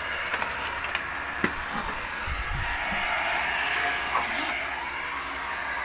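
Electric heat gun blowing steadily, with a few light clicks in the first second and a half.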